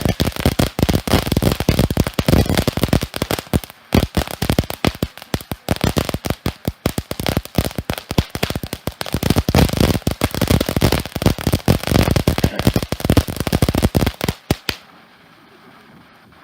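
Consumer fireworks going off in a dense, rapid run of crackles and pops that stops suddenly near the end.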